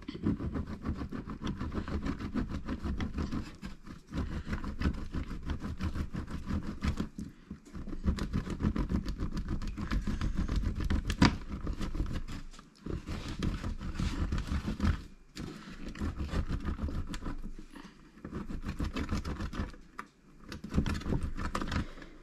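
Cheese being grated by hand on a stainless steel box grater standing on a plastic chopping board. It makes rapid scraping strokes in runs of a few seconds, broken by brief pauses.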